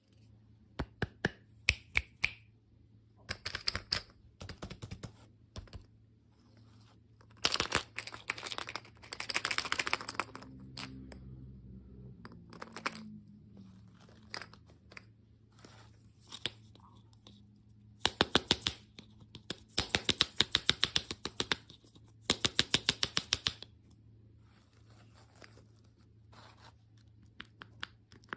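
Hands tearing and crinkling open candy-toy packaging: bursts of rapid crackling clicks lasting a second or two, with quieter handling between them.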